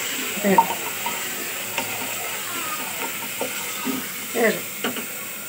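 A spatula stirring and scraping through curry simmering in a pressure-cooker pot, over a steady sizzling hiss of the hot gravy.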